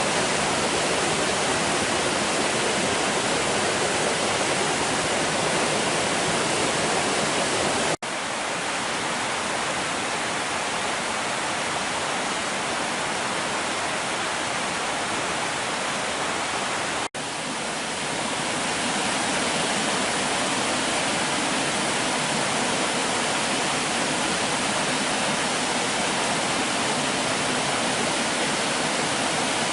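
Waterfall's water rushing in a steady, unbroken roar of noise. The sound drops out for an instant twice, about a quarter and about halfway through.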